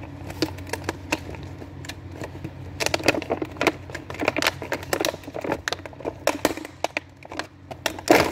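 Clear plastic clamshell packaging of an amplifier wiring kit crackling and clicking as it is handled and worked open, in irregular bursts that grow busier about three seconds in, with a louder crack at the end. A faint steady low hum runs underneath.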